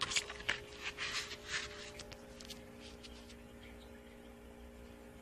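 Thin white plastic container rustling and scraping as it is turned over in the hand, a quick run of scrapes in the first two seconds, then a few fainter ones. A faint steady hum sits underneath.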